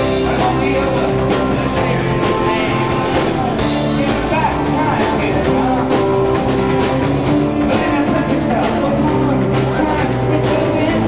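Live rock band playing a song, with drums and guitar, heard from among the crowd.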